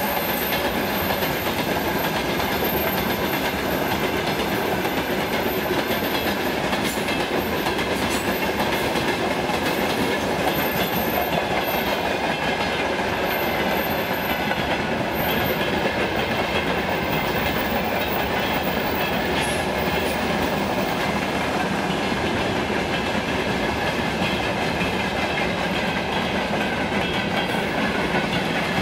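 Freight train wagons (boxcars, gondolas and hopper cars) rolling past at a steady speed: a continuous, even noise of steel wheels running over the rails.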